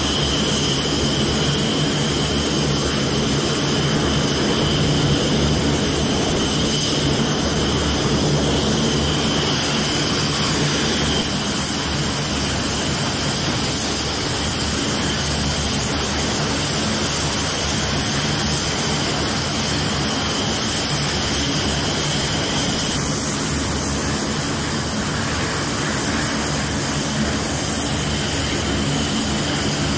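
F-15C Eagle's twin turbofan jet engines running steadily, with a high-pitched whine over a dense engine noise. The highest whine drops away about three-quarters of the way through.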